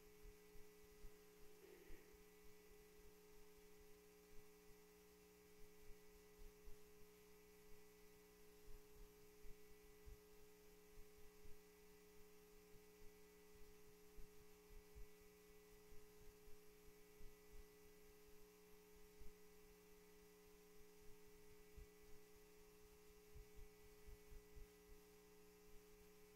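Near silence: a steady electrical hum, with scattered faint low thumps.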